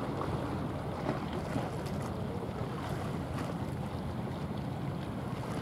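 Steady low rumble and water wash of a small coastal container ship passing close by, with wind on the microphone.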